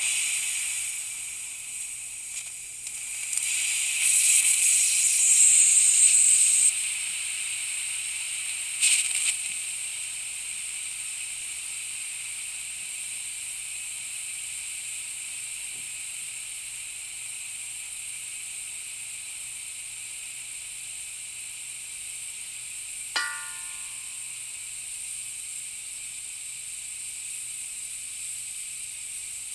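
Compressed air hissing steadily from a leaking air tank. The hiss swells louder for a few seconds about four seconds in, gives a short sharper spurt near nine seconds, and a brief high ringing tone sounds about twenty-three seconds in.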